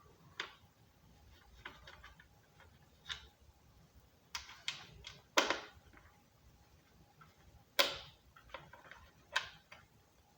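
Screwdriver working screws out of a Commodore VIC-20 keyboard assembly: scattered plastic clicks and taps, the two loudest sharp knocks about five and eight seconds in.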